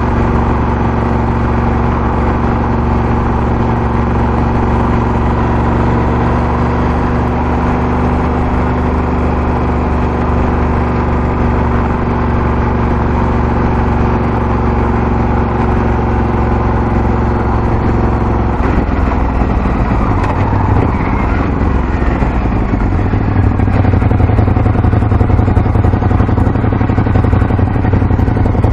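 Ducati Scrambler 1100's air-cooled L-twin running steadily while the bike cruises. About two-thirds of the way through, the engine note drops and turns uneven as the bike slows to a crawl, and it gets a little louder near the end.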